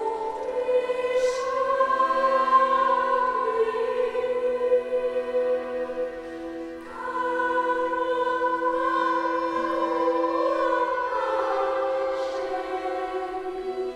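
A concert choir singing slow, sustained chords. The sound thins out briefly about halfway through, then the choir comes in again on a new chord. A hissed 's' consonant is heard twice.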